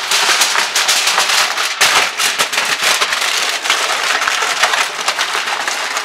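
Sheets of aluminum foil being crumpled and tucked by hand around a disposable aluminum pan: dense, continuous crinkling and crackling.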